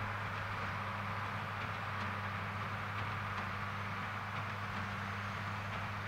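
Ford 8830 tractor's six-cylinder diesel running steadily under load, pulling a New Holland BB940 large square baler as it picks up hay, with a few faint clicks from the baler mixed into the drone.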